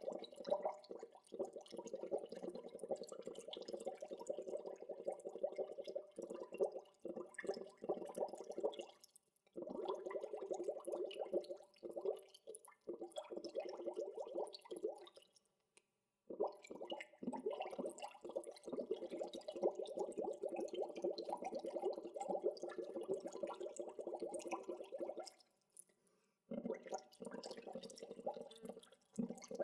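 Water bubbling: a dense, continuous stream of small bubbles popping, broken by three short pauses.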